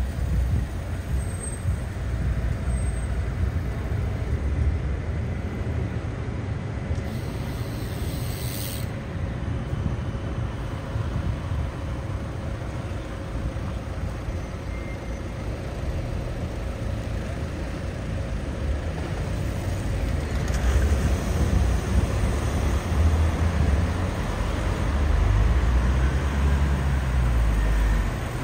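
City street traffic: cars and buses running in slow, queued traffic with a steady low rumble. A brief hiss of air comes about seven seconds in, and an engine rumble grows louder in the last third as a vehicle passes close.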